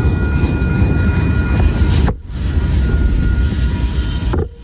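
Union Pacific manifest freight train's cars rolling past at a grade crossing: a loud, steady rumble of wheels on rail with thin steady high tones over it. The sound dips sharply for a moment about two seconds in and falls off just before the end.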